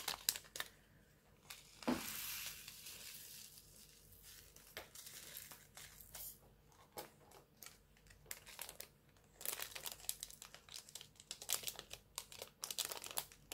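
Thin plastic packets of diamond painting drills crinkling and rustling as they are handled and opened by hand. The faint crackle comes and goes, thickest in the last few seconds.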